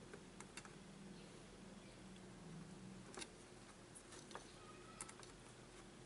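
Near silence with about five faint, sharp clicks: multimeter probe tips tapping against solder joints on the underside of a circuit board while diodes are tested.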